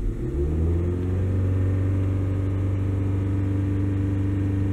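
2007 Toyota Camry's 2.4-litre four-cylinder engine revving up from idle as the accelerator is pressed. It climbs in pitch over about the first second, then holds steady at a raised speed.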